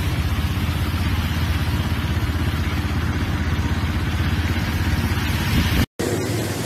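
Heavy cyclone rain and wind hissing steadily over a low, even rumble with a fast flutter. The sound cuts off abruptly near the end.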